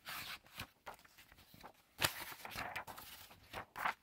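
Pages of a large hardback book being turned by hand, the paper swishing and rustling in several quick bursts.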